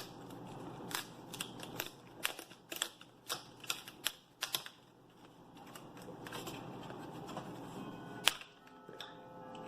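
Irregular sharp clicks and taps of hard plastic as a laptop's snap-on screen bezel is worked free and handled, coming thick for the first few seconds and then thinning out, with one last loud click near the end.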